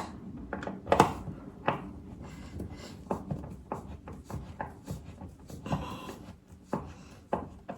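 Irregular light clicks and knocks from handling flat-pack furniture drawer parts while a handle is fitted.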